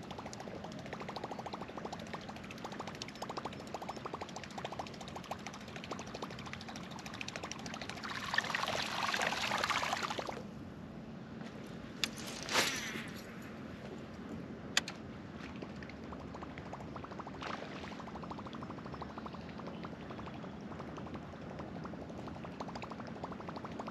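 Water lapping and trickling against a fishing kayak's hull, with light ticking. About eight seconds in a rushing swish lasts about two seconds, and a few sharp clicks follow a couple of seconds later.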